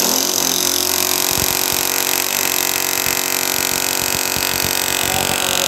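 Electric demolition hammer breaking concrete, the chisel bit hammering steadily into a wall over a motor whine.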